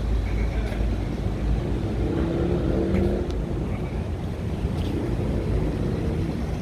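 Wind rumbling on the microphone, a steady low buffeting.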